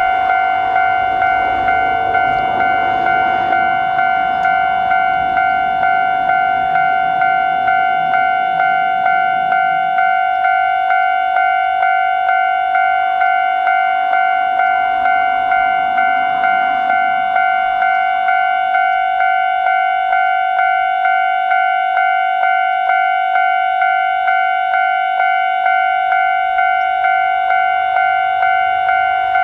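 Japanese level-crossing warning bell ringing a steady repeated ding, about three strikes every two seconds, on two clear pitches. A broad rushing noise sits under it for roughly the first ten seconds.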